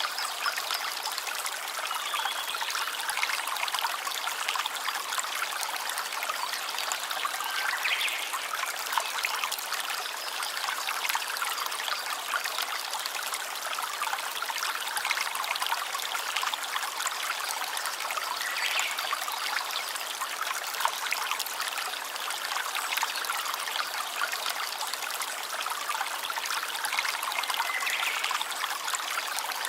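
Small stream trickling and babbling steadily, with a few brief faint high sounds standing out above the water.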